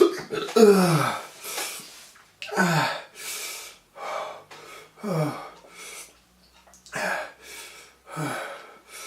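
A man moaning and gasping in pain from the burn of a ghost pepper he has eaten. There are five short groans, each falling in pitch, about two seconds apart, with hard breaths in between.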